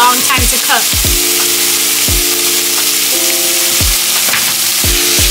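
Diced onion, garlic, red pepper and cherry tomatoes sizzling in oil in a frying pan, over background music with held chords and a deep drum beat.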